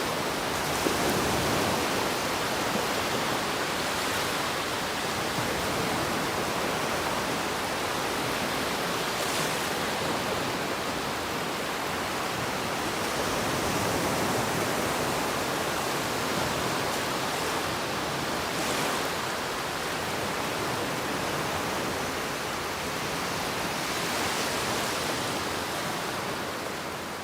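Ocean waves washing up on a beach: a steady rushing hiss that swells now and then as a wave runs up the shore.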